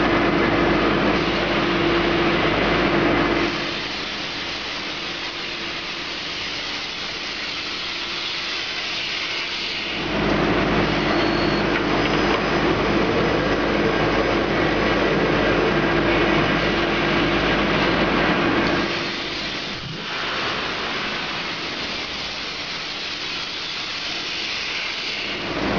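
CNC sheet-metal V grooving machine running. Loud stretches carry a steady hum and low rumble. These drop twice, about four seconds in and again near the end of the first third of the last half, to a quieter, hissier sound for about six seconds before the machine comes back up.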